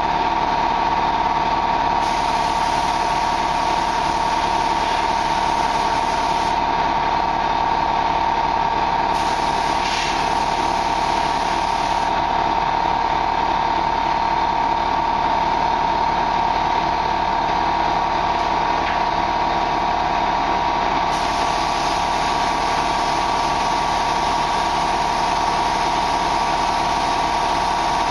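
Spray-painting equipment running steadily during a tractor repaint: a constant high whine over a loud hiss of air.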